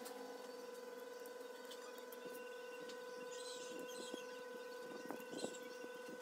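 Small metal parts being handled and fitted on an RC truck's metal chassis: light clicks and brief scrapes of screwdriver, bolts and axle against the frame, over a steady electrical hum.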